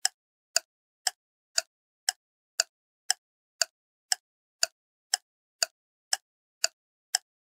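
Sharp, even ticks, like a ticking clock, about two a second, with silence between them.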